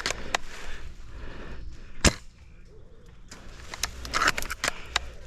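Airsoft gun shots: scattered sharp clacks, one loud, close crack about two seconds in, and a quick cluster of fainter ones near the end.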